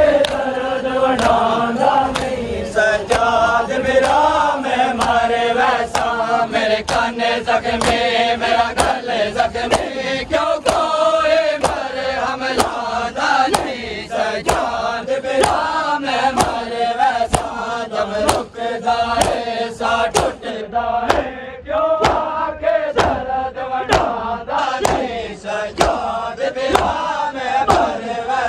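Crowd of Shia mourners chanting a noha in unison while doing seena zani (matam), sharp open-hand slaps on bare chests keeping an even beat of about one and a half a second.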